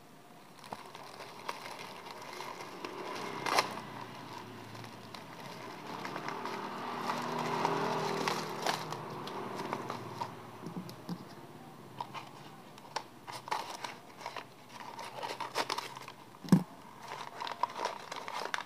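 Packaging being handled and unwrapped by hand: a plastic mailer bag and brown paper wrapping crinkling and rustling, with scattered sharp crackles. The rustling is loudest about halfway through.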